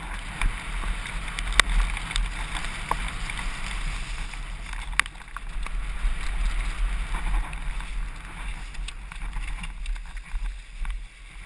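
Mountain bike descending a rough, muddy gravel trail: wind buffeting the helmet camera's microphone over a steady rumble of tyres on the ground, with scattered sharp clicks and knocks from the bike over bumps. It grows quieter near the end as the bike slows.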